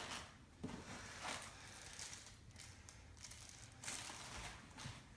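Faint rustling and crinkling of packaging material with a few light knocks as statue pieces are unpacked and handled.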